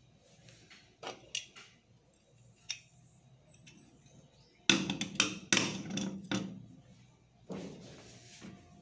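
Burner caps of a glass-top gas stove being set back onto their burners: a few light clicks, then a quick run of sharp clinks and knocks about five seconds in, and one more near the end.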